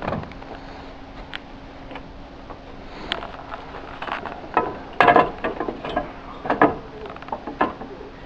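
Roof tiles clacking and knocking as they are handled and set onto the roof battens: a scatter of sharp clicks, busiest about five seconds in.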